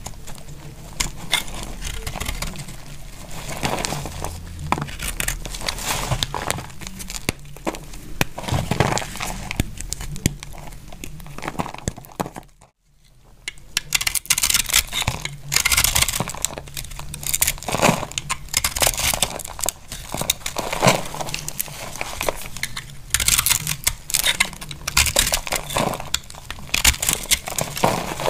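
Dry bar soap being cut into thin plates with a snap-off utility knife blade: a dense run of crisp crackling, crunching cuts as the brittle soap splits and the chips break away. It breaks off briefly about halfway through.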